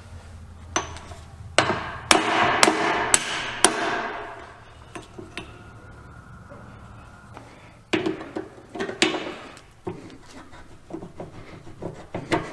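Hammer striking a steel driveshaft yoke held in a bench vise to knock out the U-joint bearing caps: about six sharp metallic blows in the first four seconds, ringing between strikes. Lighter metal clinks and knocks follow from about eight seconds in as the parts are handled.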